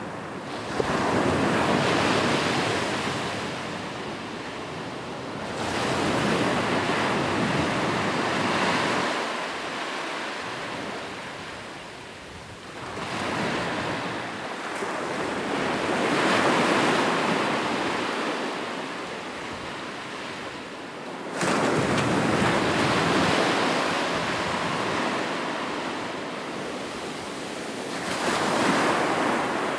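Ocean waves breaking on a shore, swelling and fading about every five to seven seconds, with the surf washing between breaks.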